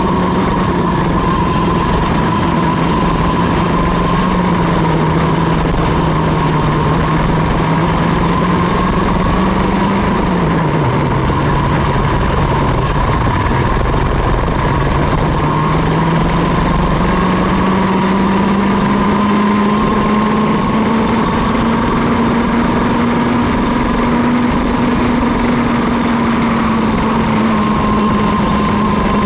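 Mini ROK kart's 60cc two-stroke engine running at race speed, heard from onboard with wind noise on the microphone. Its pitch drops as the kart slows for a corner about ten seconds in, climbs steadily along the straight that follows, and falls again near the end.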